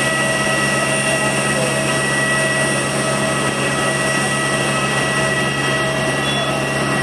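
Parked Airbus A321's auxiliary power unit running: a loud, steady turbine whine over a low hum, unchanging in pitch.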